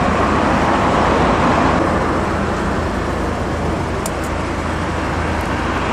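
Steady road traffic noise: an even rush of passing vehicles.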